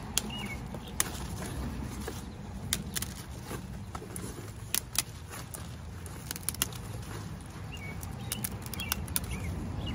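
Leaf stalks of a purple Vienna kohlrabi being snapped off the bulb by hand: about a dozen sharp, crisp snaps at irregular intervals, over a steady low rumble.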